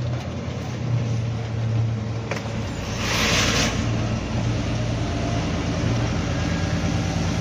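Truck's diesel engine running steadily as the truck drives, with a short hiss about three seconds in.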